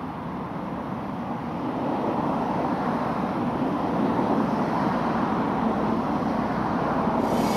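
Steady rumbling noise with no distinct strikes or tones, growing slowly louder.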